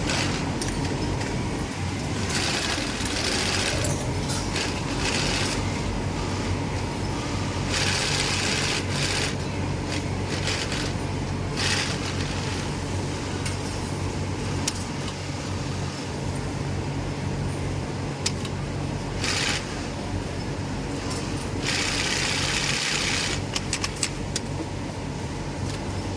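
Industrial sewing machine: a steady motor hum, with bursts of stitching noise one to two seconds long, about six times.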